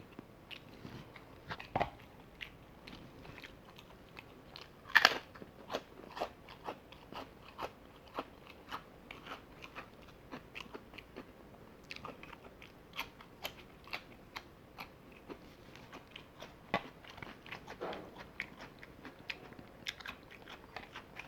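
A person chewing and biting crispy fried chicken close to the microphone: a steady run of crunches and chewing clicks, with the loudest crunch about five seconds in.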